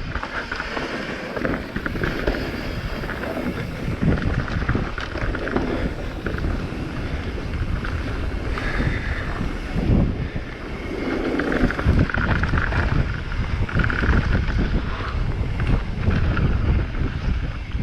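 Wind buffeting the microphone of a camera riding on a mountain bike descending at speed, with the bike clattering over rough trail in irregular knocks.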